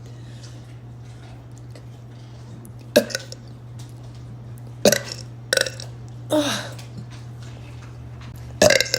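A woman burping: about five short, separate burps spread over several seconds, some dropping in pitch.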